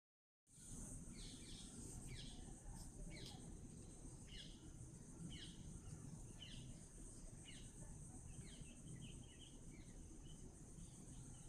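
Faint outdoor background: a bird repeating a short falling chirp about once a second, over a steady high-pitched hiss and a low rumble.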